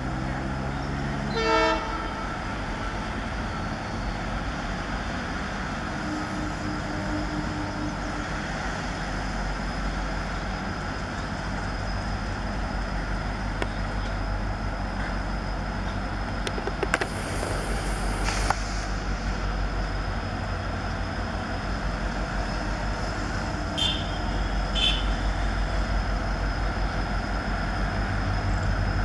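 WDG4D and WDG4 diesel-electric locomotives in multiple, EMD 710 two-stroke engines running with a steady low rumble as they draw a passenger train in. There is one short horn toot about a second and a half in, and a thin high whine that rises slightly near the end.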